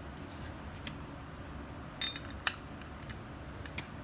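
A few light metallic clinks of hand tools being handled, two clear ones about two seconds in and fainter ticks near the end, over a low steady hum.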